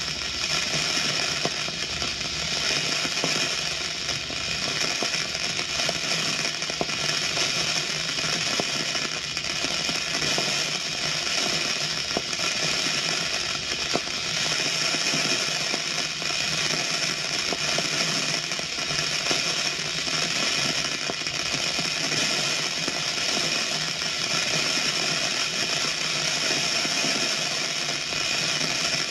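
Steady, continuous mechanical grinding and rattling noise from a sound-effects record, running without a break.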